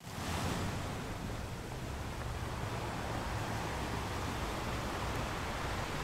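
Ocean surf: a steady, even rush of waves that starts abruptly, with no breaks or strikes in it.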